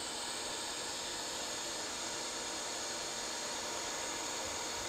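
Steady airy hiss with faint steady tones underneath, the running noise of equipment on an electronics repair bench.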